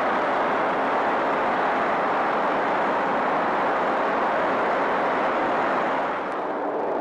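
A steady, loud rushing roar with a faint hum running through it. It eases slightly about six seconds in.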